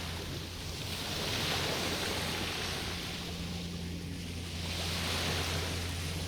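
Small waves washing onto the shore, swelling and fading about every two to three seconds, over a steady low hum.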